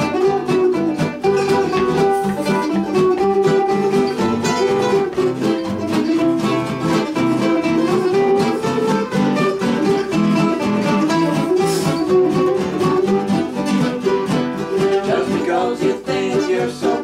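Acoustic guitars and a mandolin playing an old-time country tune together, with steady strummed and picked rhythm.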